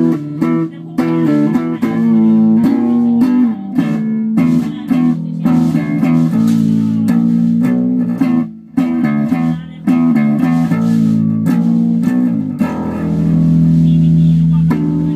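Rickenbacker 4003 electric bass played in a quick run of plucked notes, ending on one long held note that stops abruptly.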